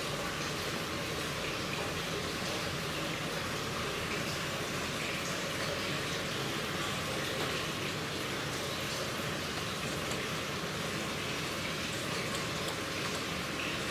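Water running and splashing steadily into the fish tanks of an indoor recirculating aquaculture system, an even, rain-like rush with no break.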